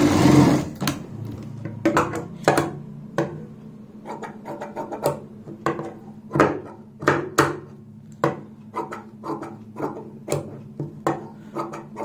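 Large tailor's shears snipping through layered fabric in a run of separate, irregularly spaced cuts, trimming the excess cloth around a stitched piece. A sewing machine running stops just under a second in.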